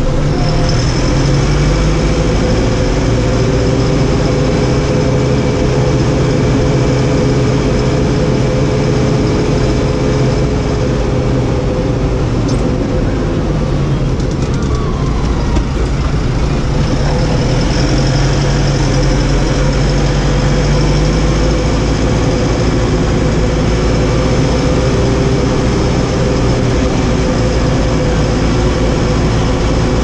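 New Holland T4.75 tractor's four-cylinder diesel engine running under way, heard from inside the cab, with a steady high whine over it. About halfway through the engine eases off for a few seconds, then picks up again.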